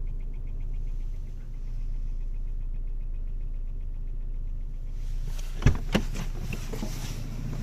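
Citroën Xantia 1.8 LFY petrol engine idling, with a light, rapid, even ticking from the fuel-vapour canister purge valve: this is the knock, cured by replacing the valve. About five and a half seconds in, two sharp knocks stand out over the running engine.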